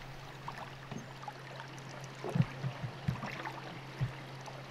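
Water lapping and trickling along the hull of a wooden drift boat moving on calm river water, with a few short splashes or knocks in the second half.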